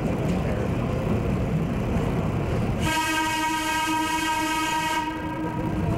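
A steady low rumble, then about three seconds in a train horn sounds one steady blast lasting about three seconds.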